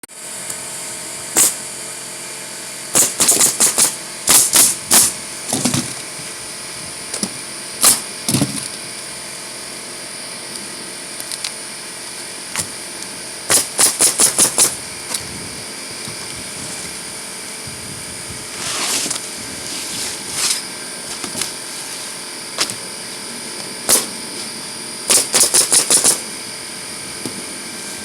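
Roofing nail gun firing in rapid bursts of four to six shots, a few bursts spread through, driving nails into asphalt shingles, with some single shots and softer scraping between them.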